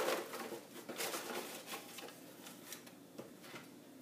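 Folded paper slips rustling inside a cardboard beer case as a hand rummages among them and draws one out. The loud shaking stops right at the start, leaving a few faint, scattered rustles and ticks.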